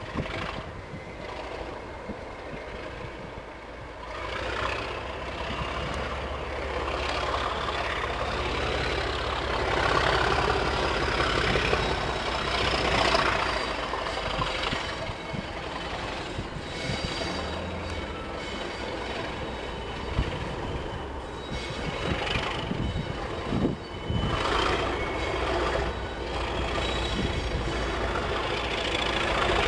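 Two Class 37 diesel-electric locomotives, each with an English Electric 12-cylinder engine, working hard as they haul a passenger train: a steady low engine drone that grows louder after a few seconds, with a high whine rising and falling in pitch about a third of the way through and scattered short clicks.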